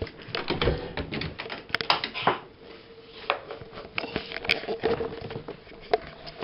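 A balcony door handle clicking shut, then camera handling noise: a run of irregular clicks, knocks and rustles as the camera is carried.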